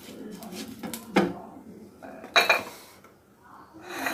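Silicone pastry brush swiping oil across a ridged nonstick grill pan: a few separate scraping strokes against the pan, the loudest about two and a half seconds in. A louder rushing noise starts right at the end.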